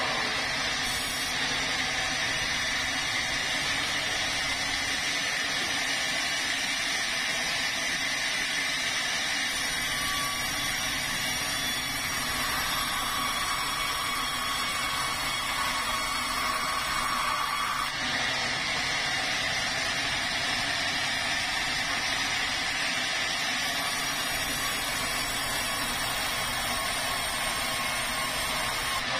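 Sawmill saw cutting a plank from a red meranti log, a steady machine hiss with the blade running in the wood. A thin tone rises slightly in pitch from about ten seconds in and cuts off at about eighteen seconds.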